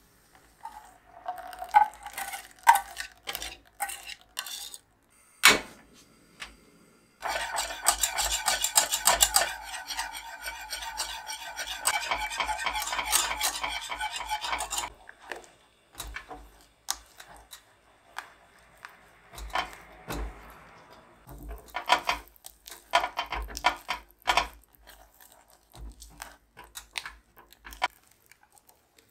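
Lemon cream mixture of egg, sugar and lemon juice poured into a metal saucepan, then whisked fast with a wire whisk against the pan for about eight seconds as it cooks. Then slower, scattered scraping and stirring in the pan as the cream thickens.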